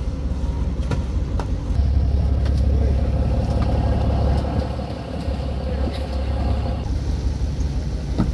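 Fishing boat's engine running steadily, a low drone, with scattered short knocks over it.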